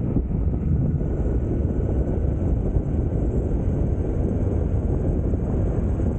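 Electric mountain board rolling on asphalt: steady wind buffeting on the microphone and tyre rumble, with a faint high whine from its belt-driven Flipsky 6384 brushless motors.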